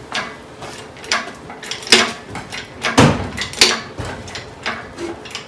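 Irregular metal clanks and knocks from an engine being shifted about in a car's engine bay on a shop hoist, the heaviest a dull clunk about three seconds in.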